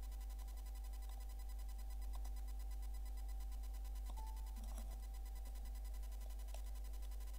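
Steady low electrical hum with several faint constant whining tones, the background noise of a computer recording setup, with a few faint clicks and a brief higher tone a little past four seconds in.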